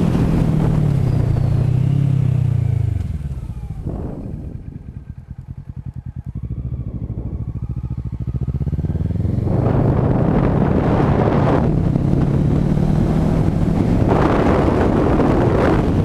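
2012 Kawasaki ER-6n's parallel-twin engine through a full Akrapovic exhaust with no dB killer, heard from a camera on the bike. The revs fall about two to three seconds in as the bike slows, the engine burbles at low revs for several seconds through a bend, then it accelerates hard again from about nine and a half seconds in. It is loud, with wind noise on the microphone.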